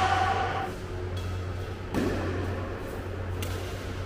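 Badminton rally on an indoor court: a racket hits the shuttlecock once about two seconds in, over a steady low hum.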